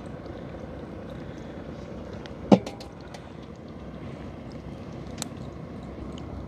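Small fishing boat with a gill net being hauled in: a steady low rumble with light scattered clicks, and one sharp, loud knock about two and a half seconds in.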